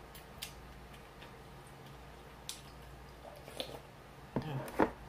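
Close-miked eating of ramyun noodles: quiet chewing with scattered soft wet mouth clicks, and near the end a louder smack and a sharp click.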